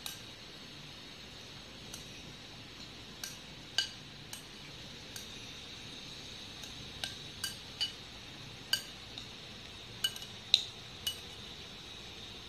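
Metal spoon clinking against the sides of a glass bowl while stirring chopped raw vegetables. About a dozen irregular sharp clinks with a short ring, the loudest about ten and a half seconds in.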